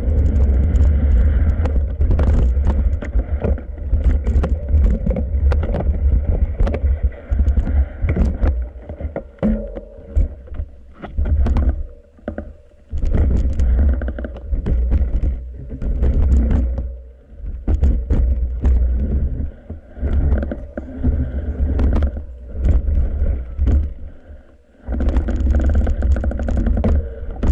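Mountain bike descending a rough dirt and rock trail: wind buffeting the microphone over the tyre noise, with frequent rattles and knocks from the bike over bumps. The noise drops away briefly several times in the middle.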